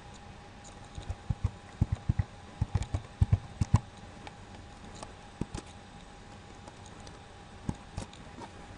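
Computer keyboard keystrokes typing a password: a quick run of about a dozen key clicks between one and four seconds in, then a few single clicks later on.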